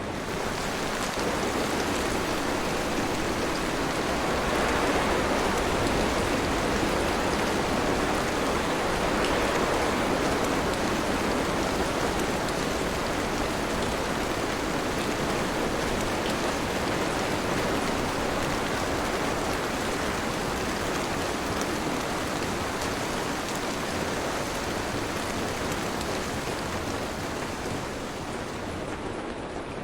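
Steady, continuous heavy rain falling, an even hiss with no thunder claps.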